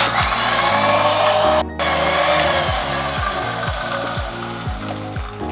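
Electric mixer grinder running at speed, its blender jar churning milk, soaked cashews and pistachios with ice cubes into a milkshake. It starts abruptly, cuts out for a moment about a second and a half in, then runs on and slowly fades toward the end.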